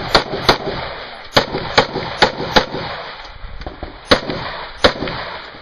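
Rifle shots fired in quick succession, eight in all: a pair at the start, four about half a second apart, then after a pause of about a second and a half, two more. Each shot is a sharp crack with a short echo.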